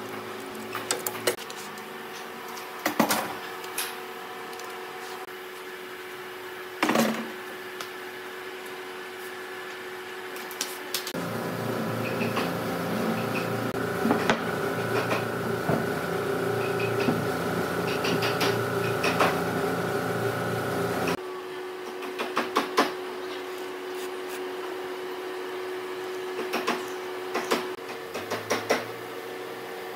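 Workshop handling sounds: heavy wooden timber blocks and clamp parts being set down and shifted, giving scattered sharp knocks and clatters over a steady background hum. For about ten seconds in the middle a louder steady machine drone with a low rumble starts and stops abruptly.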